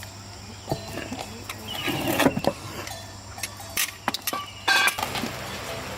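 Scattered metallic clicks and knocks over a low steady hum, with louder clattering about two seconds in and again just before five seconds in, typical of metal tools and parts being handled during a repair.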